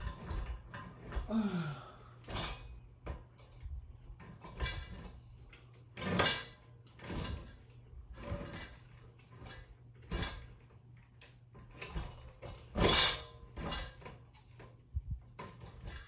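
52-inch Craftsman ceiling fan running with a steady low motor hum and irregular sharp clunks, roughly one every second or two. It is a fault noise that the owner says is getting worse.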